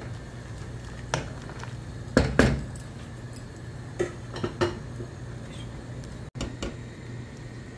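Wooden spoon knocking against a cooking pot while stirring green beans in tomato sauce: a few sharp knocks, the loudest pair about two seconds in, more around four seconds and one near the end, over a steady low hum.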